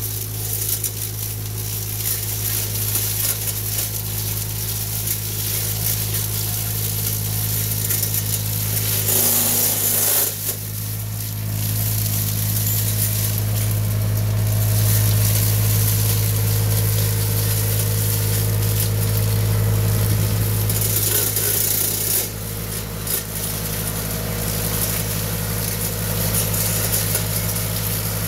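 Avant 423 mini loader's engine running at a steady pitch while the Rinieri multi-disc hedge cutter's spinning blades cut through hedge foliage, a continuous hissing wash that swells at times.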